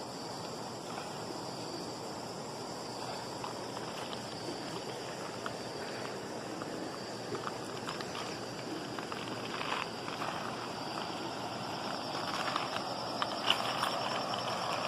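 River water flowing steadily, with a constant high-pitched insect drone above it. A few sharp clicks stand out near the end.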